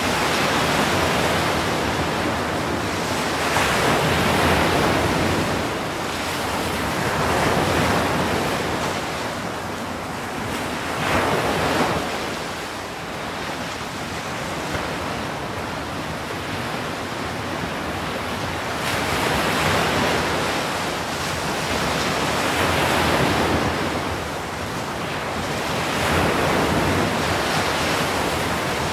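Ocean surf: waves breaking and washing over the shore as a rushing hiss that swells and ebbs every few seconds, with a sharper surge about eleven seconds in.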